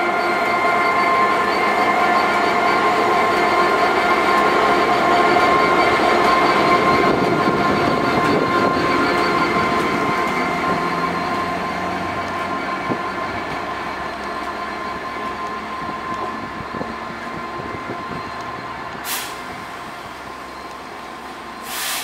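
EWS Class 66 diesel-electric locomotive, its EMD two-stroke V12 running, moving off light engine and drawing away, with a steady high whine over the engine sound that slowly fades as it recedes. Two brief sharp noises come near the end.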